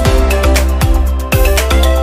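Loud dance music with a steady thumping beat.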